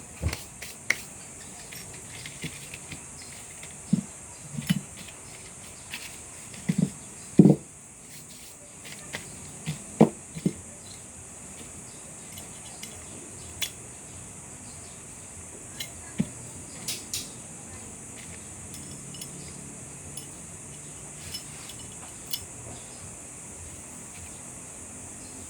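Glock 9×19 pistol parts being handled during field-stripping and reassembly: scattered clicks and knocks of the parts, with a few louder knocks about seven and ten seconds in and sparser clicks after. A steady high-pitched hiss runs underneath.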